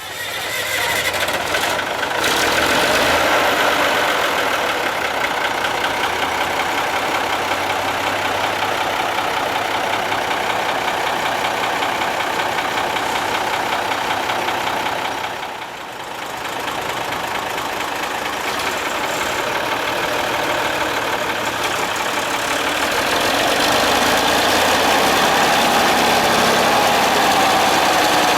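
Engine of a 1940 Sterling chain-drive truck running steadily. It dips briefly a little past halfway, then grows a little louder over the last few seconds.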